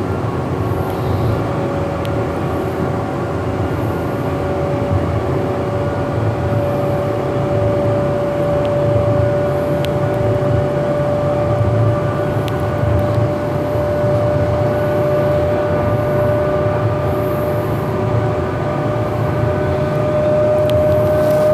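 Siemens S200 light rail vehicle heard from on board while running, with a steady whine from its traction motors that slowly rises in pitch. Underneath is a low rumble of the wheels on the rails, with a few faint clicks.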